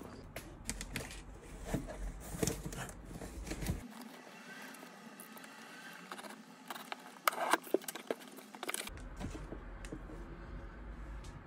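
Footsteps on pavement over a low rumble of wind on the microphone. About four seconds in this gives way to scattered clicks and light crinkling of objects being handled on a desk, with a few sharper knocks near the middle.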